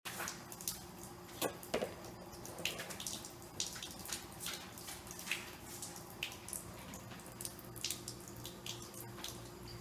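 Kitchen faucet running a thin stream into the sink, with irregular small splashes and clicks as a cat laps from the stream. Two louder knocks come about a second and a half in.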